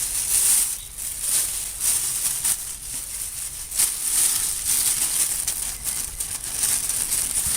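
A bag crinkling and rustling in irregular bursts as it is handled and draped over a vise, masking it off for spray painting.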